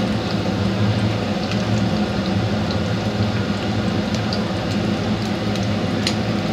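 Eggs frying in shallow oil with minced garlic and dried scallop in a nonstick pan: a steady sizzle dotted with small crackles and pops, one sharper pop near the end. A low steady hum runs underneath.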